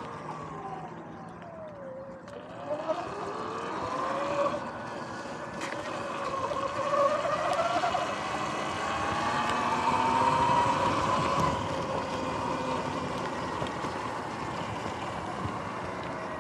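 Electric dirt bike's motor whining as it rides. The whine drops in pitch in the first couple of seconds, climbs again, then rises strongly about halfway through, over a steady rush of wind noise.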